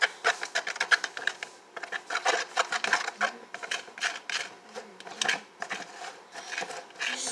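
A utensil clicking and scraping against a bowl while white glue and food coloring are stirred together, a quick, irregular run of small clicks.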